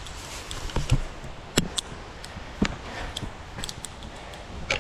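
A hiker's footsteps and light rustling on a steep forest path: a few dull thumps about one, one and a half and two and a half seconds in, among scattered light clicks.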